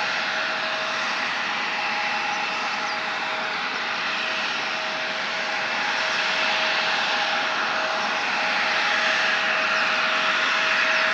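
Embraer E-Jet's General Electric CF34 turbofan engines running at idle during pushback: a steady whine over a rushing hiss, growing a little louder in the second half.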